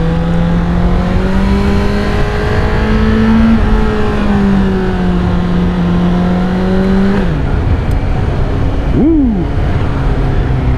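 Suzuki GSX-S750's four-cylinder engine pulling steadily under way, its pitch climbing gently, then holding before falling away about seven seconds in as the throttle closes. Near the nine-second mark the revs rise briefly and drop back, over steady wind and road noise.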